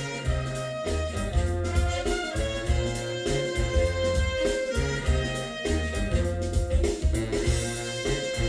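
Instrumental music with a steady, pulsing bass beat, played back from a cassette on a Kenwood KX-660HX stereo cassette deck.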